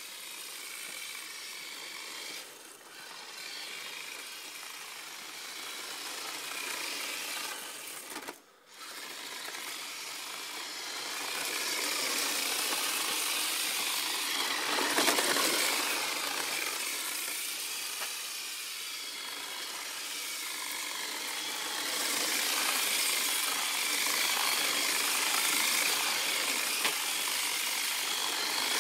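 Small electric motor of a radio-controlled 4x4 drift car whining, its pitch rising and falling as the car speeds up and slows through drifts, over a steady hiss. The sound cuts out briefly about eight seconds in.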